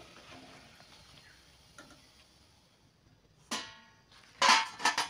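Faint sizzle of frying oil, then metal clinks as a stainless-steel plate and wire spider skimmer meet: one ringing clink about three and a half seconds in. Near the end comes a quick run of sharp clatters as crisp fried papdi are tipped onto the steel plate.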